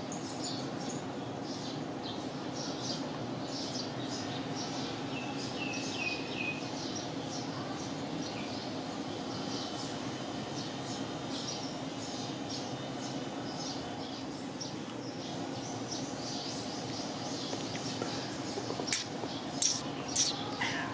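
Small birds chirping and twittering over a steady low hum, with three or four sharp clacks near the end.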